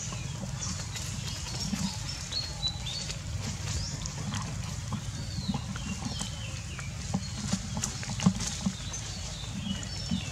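Scattered rustling and tapping in dry leaf litter, with short high chirps that slide in pitch, over a steady low rumble. A few sharper taps come in the second half.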